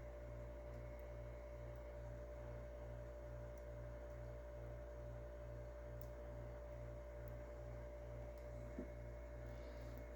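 Faint steady low hum with a slight even pulsing, like an electrical appliance's hum; little else is heard.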